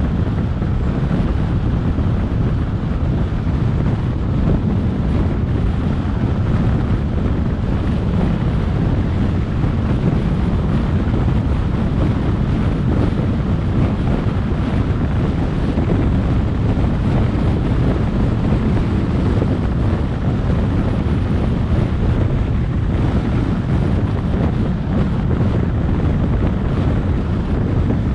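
Steady wind rush on the microphone mixed with the tyre and road noise of a car driving along a street, heaviest in the low end and unchanging throughout.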